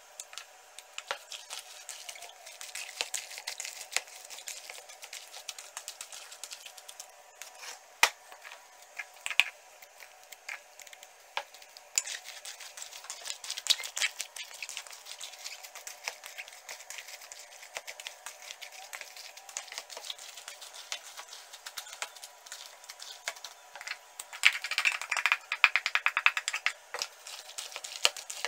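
Hands mixing salted napa cabbage with a wet gochugaru chili paste in a plastic bowl: a steady run of small irregular crackles, clicks and squishes, busiest about three-quarters of the way through.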